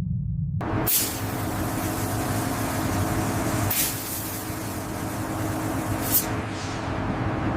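Machinery noise: a low rumble gives way suddenly, about half a second in, to a loud steady hiss over a mechanical hum, with three short sharp hisses like air being released.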